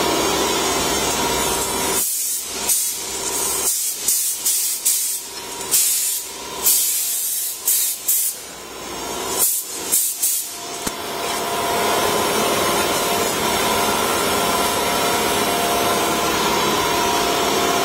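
Woodworking CNC router machinery running steadily with a faint whine. Through the middle of the stretch it is broken by a series of short, sharp hisses of air before the steady running returns.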